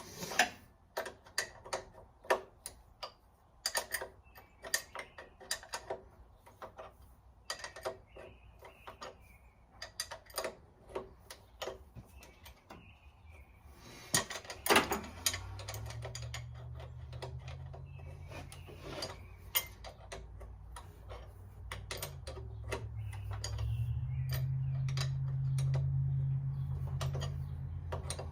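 Hand tools clicking and clanking against metal engine parts in short irregular knocks. About halfway in, a low steady hum starts and grows louder toward the end.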